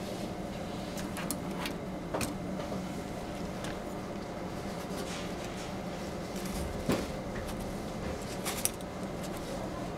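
A steady electrical hum with a few sharp clicks and knocks as test leads and clips are handled and reconnected at a bench multimeter. The loudest click comes about seven seconds in.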